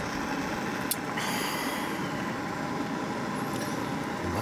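A person sips hot sake from a glass cup: a light tap about a second in, a short sip just after it, and another tap near the end, all over a steady hiss.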